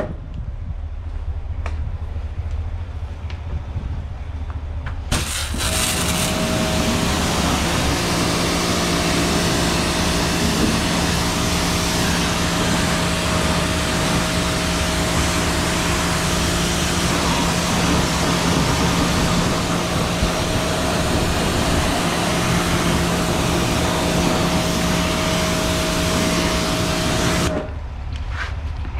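Kärcher K4 Full Control electric pressure washer starting up about five seconds in, its motor and pump humming steadily under the hiss of the high-pressure water jet spraying a car tyre. Motor and spray cut off abruptly near the end.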